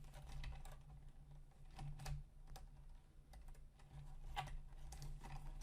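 Small irregular clicks and taps of a plastic motor-cable connector and wiring being handled and pushed into a port, over a steady low hum.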